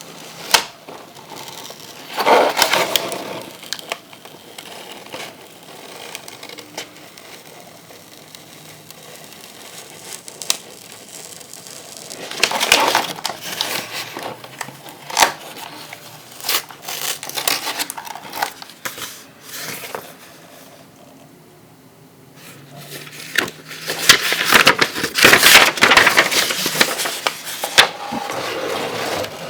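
Toy packaging being opened and handled by hand: irregular clicks, crackles and scrapes, with busier bursts of handling about two seconds in, around twelve seconds in and near the end.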